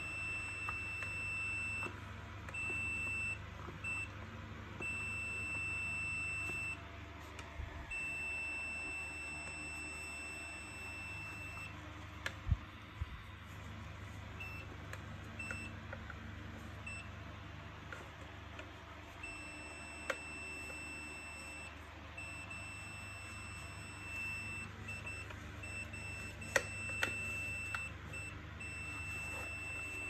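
Digital multimeter's continuity buzzer beeping in a steady high tone, cutting in and out several times, stopping for a stretch in the middle, then sounding again: it signals that the circuit under test in the Kärcher WD 3 vacuum cleaner is closed. A few sharp clicks of the vacuum's plastic parts being handled come about halfway through and again near the end.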